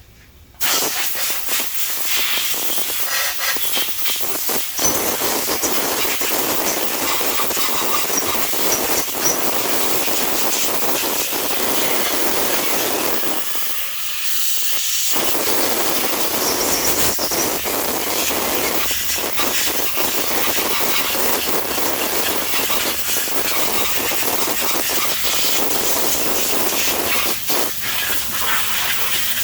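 Compressed-air blow gun blasting through the bolt holes and water-jacket passages of a freshly washed Mopar 360 cast-iron cylinder head, a loud steady hiss that blows out the moisture and trash. It starts about half a second in, eases briefly around the middle and stops near the end.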